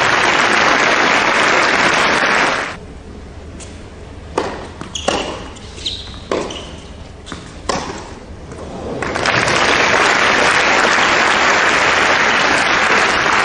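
Crowd applauding, then a quieter stretch of about six seconds in which a tennis ball is struck by rackets and bounces on the hard court, several sharp hits in a rally. About nine seconds in, the applause rises again and carries on at the end of the point.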